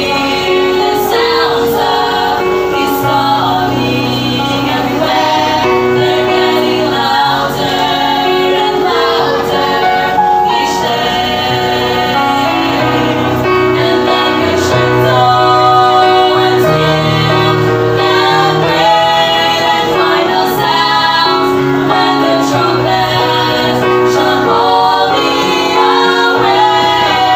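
A vocal trio singing a gospel song in harmony over a steady instrumental accompaniment with sustained bass notes.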